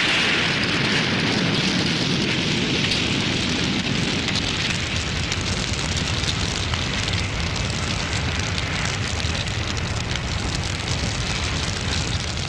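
Sound effect of a large fire burning, a dense steady crackle and hiss that eases slightly over the seconds.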